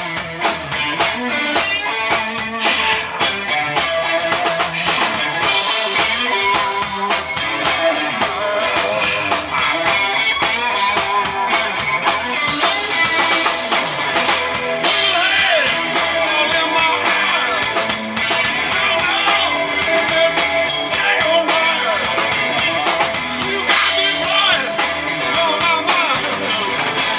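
Live blues band playing: electric guitar, electric bass and drum kit.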